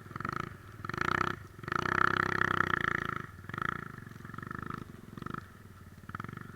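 Three-wheeler ATV engine revving in repeated throttle surges, rising and falling. The strongest surge comes about two seconds in, and the later surges are quieter.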